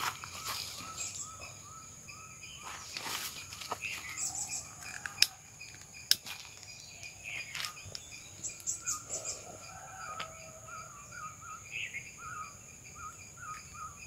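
Outdoor bird and insect ambience: a bird repeating short chirping calls over a steady high insect drone, with a few sharp clicks, the loudest about five and six seconds in.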